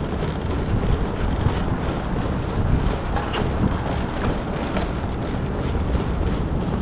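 Wind buffeting the microphone: a steady low rumble that swells and dips.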